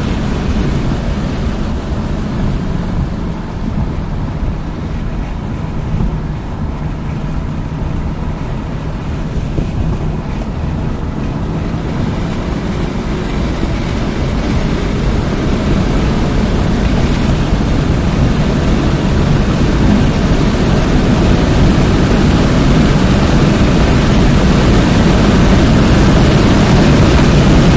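Hyundai Elantra N's turbocharged 2.0-litre four-cylinder engine driving at speed, with road and wind noise. It is quieter for the first several seconds, then builds steadily louder through the rest as the car accelerates.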